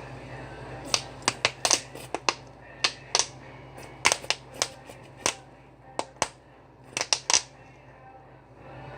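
A quick, irregular run of about twenty sharp clicks and taps, typical of kitchen utensils knocking against a pan or plate, over a steady low hum. The clicks stop a second or so before the end.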